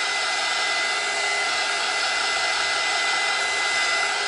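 Small handheld dryer blowing steadily, with a thin steady whine from its motor.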